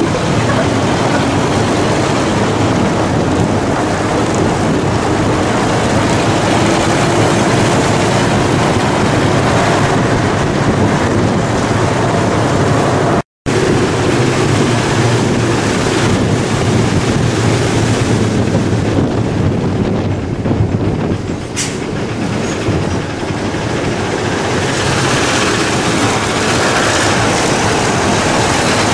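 Steady engine and road noise heard from on board a moving vehicle, a continuous low rumble. The sound drops out for an instant about thirteen seconds in.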